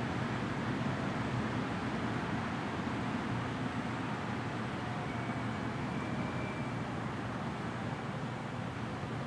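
Steady outdoor background rumble with no siren sounding. A faint high tone drifts briefly in the middle.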